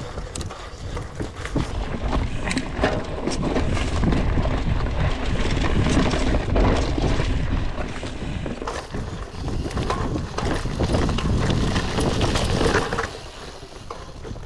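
Mountain bike ridden over rocky, leaf-covered singletrack, heard from a handlebar-mounted camera: tyres rolling over dirt and rocks with many sharp clicks and knocks as the bike jolts, and wind rumbling on the microphone.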